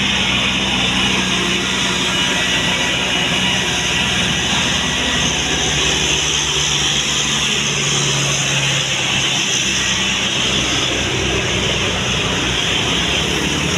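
A large bus's diesel engine is running under load with steady road and tyre noise. Its note drops a little partway through.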